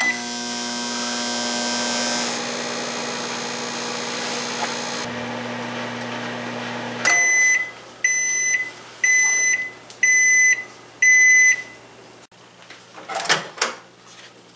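A countertop microwave oven is keyed on with a short beep and runs with a steady hum. It then shuts off and sounds five beeps about a second apart to signal that the cooking time is up. Near the end the door latch clicks as the door is pulled open.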